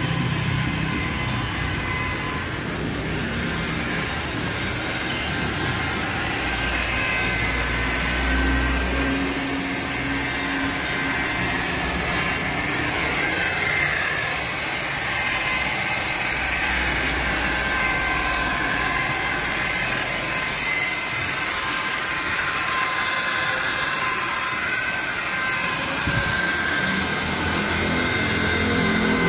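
Electric rotary polisher with a foam buffing pad running steadily against a scooter's plastic body panels, giving a continuous motor whine.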